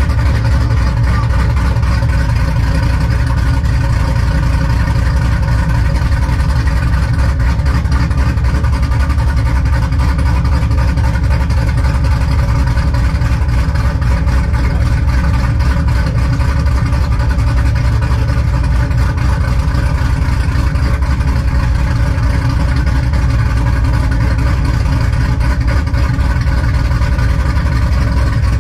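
Chevrolet Silverado's 4.8-litre V8 with a BTR Stage 4 truck cam idling steadily, warming up after a cold start.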